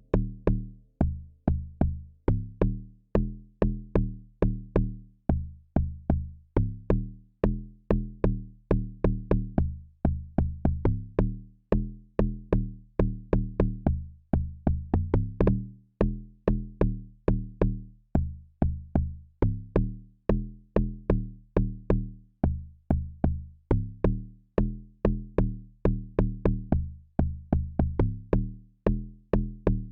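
Amapiano beat playing from a music production program: a pattern of short, punchy, pitched bass-drum notes that decay quickly, about three to four hits a second, in the style of an amapiano log drum.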